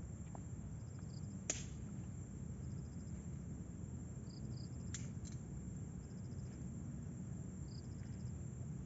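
Insects chirping in short high trills every second or so over a low steady rumble, with a sharp click about one and a half seconds in and another about five seconds in.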